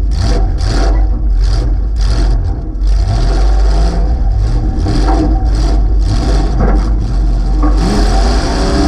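Loud V8 engine of a demolition-derby box Ford wagon, a 355 running through open headers out of the hood. It is blipped in quick surges about twice a second for the first few seconds, then runs steadier, and its pitch climbs as it revs up near the end.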